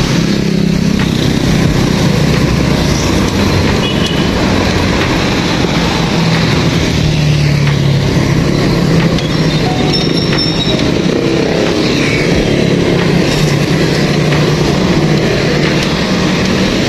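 Steady drone of motor traffic, a motorcycle tricycle and passing cars and motorcycles, heard from a moving bicycle with road and wind noise on the microphone.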